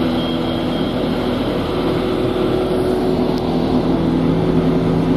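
Diesel engines of a forage harvester and tractor running steadily under load while chopping grass for silage.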